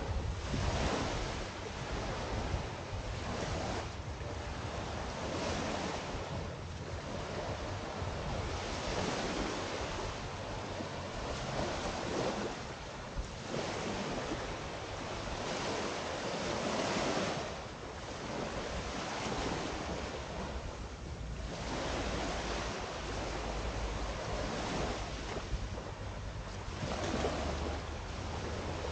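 Small sea waves lapping and washing up onto a sandy shore, swelling and fading every couple of seconds, with wind buffeting the microphone as a low rumble underneath.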